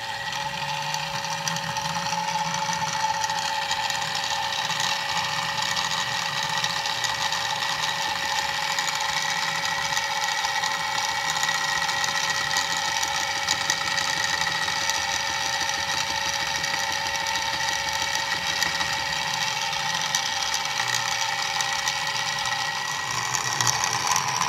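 Harbor Freight mini milling machine running, its 1/8-inch four-flute end mill plunge-cutting aluminium as the quill is hand-fed down. A steady machine whine with several constant tones over a gritty cutting noise.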